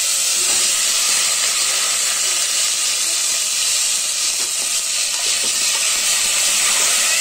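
Rice and cumin seeds sizzling in hot ghee in a pressure cooker: a steady, loud hiss, with steam rising off the pot.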